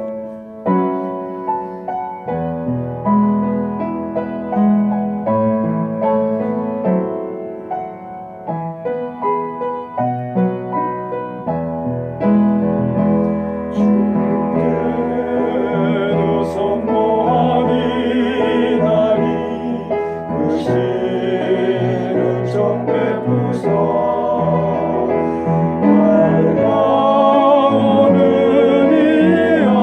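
Piano playing an introduction, then a small vocal ensemble comes in singing with vibrato over the piano accompaniment about halfway through.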